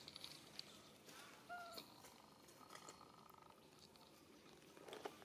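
Quiet outdoor ambience with a few faint, short animal calls: a rapid tick-like trill at the start and a brief falling squeak about a second and a half in.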